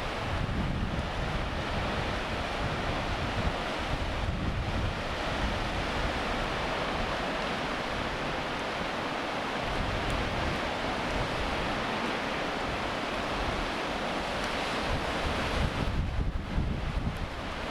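Sea waves washing and breaking continuously, with wind gusting across the microphone in a low rumble.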